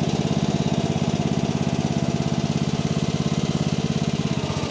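Mini-excavator's diesel engine running steadily, with a fast, even pulse.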